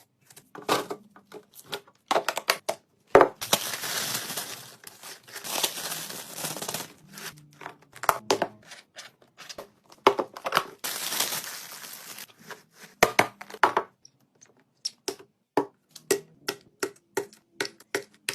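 Containers and packaging being handled and set down while a fridge is arranged: many sharp clicks and taps, with two long stretches of crinkling packaging, one a few seconds in and one past the middle.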